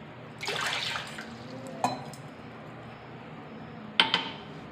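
Water poured from a glass into a saucepan in a short splash, followed by sharp clinks of kitchenware: one near the middle and two close together near the end, the loudest.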